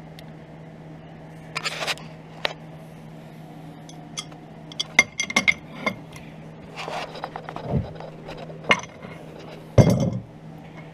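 Metal clinks, knocks and scraping as a steel tie rod end and its castle nut are handled against a cast iron steering arm, with the loudest knock near the end. A steady low hum runs underneath.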